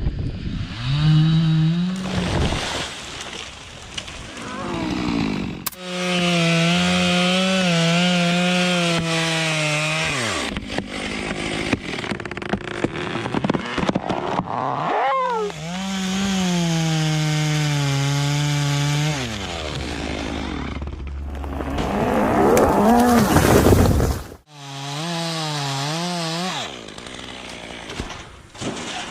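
Chainsaws running at high revs and cutting into tree trunks, the engine pitch rising and falling as the throttle is worked and the chain bites. This comes as several separate stretches with abrupt breaks between them.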